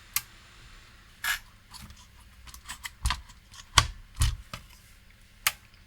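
Scattered handling clicks and knocks on a workbench, about six separate taps with the sharpest one a little before the middle.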